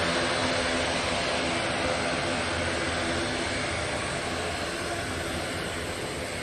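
Airliner engines running on the airfield: a steady rushing noise with a faint hum underneath that slowly fades.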